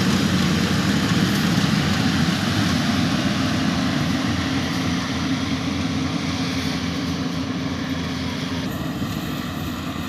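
Yanmar YH850 rice combine harvester running steadily while harvesting, its diesel engine and threshing machinery a dense drone that grows gradually fainter as it moves away.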